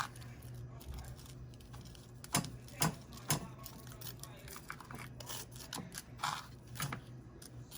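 Light clicks and taps of a fried doughnut being turned and rolled in a bowl of cinnamon sugar, with three sharp clicks about half a second apart a couple of seconds in and another near the end, over a low steady hum.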